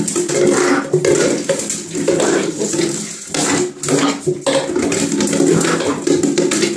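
A plastic bottle knocked and pushed about an empty enamel bathtub by a Pembroke Welsh Corgi puppy: repeated hollow clattering and knocking against the tub floor and sides, with the puppy's paws scrabbling on the tub, echoing in the small tiled bathroom.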